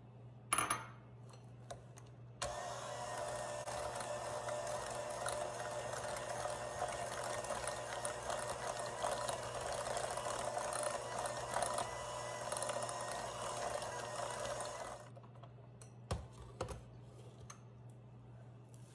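Electric KitchenAid hand mixer running steadily for about twelve seconds, its beaters whipping cream cheese and sugar in a glass bowl, then switched off. A sharp knock comes shortly before it starts, and a few more knocks follow after it stops.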